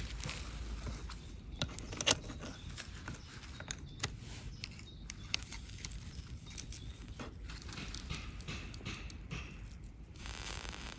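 Metal pliers handling a smoking phosphorus incendiary bullet on a small steel vise: a few scattered sharp clicks and taps, the loudest about two seconds in, over a steady low rumble.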